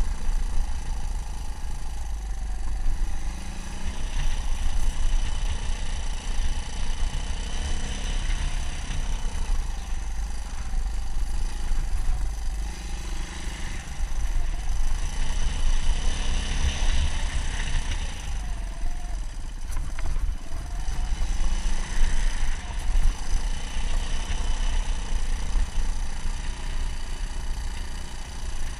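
Suzuki DR200's single-cylinder four-stroke engine running as the motorcycle is ridden, its pitch rising and falling with the throttle, over a heavy low rumble.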